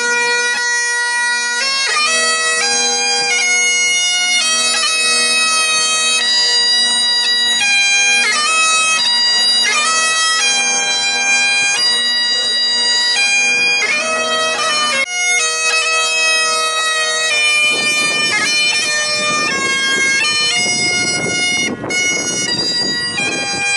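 Great Highland bagpipes playing a melody over a steady drone. The music stops suddenly near the end.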